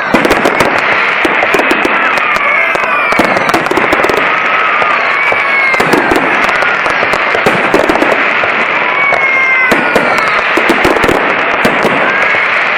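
Dense, continuous barrage of fireworks and firecrackers: constant crackling bangs, with falling whistles every second or two.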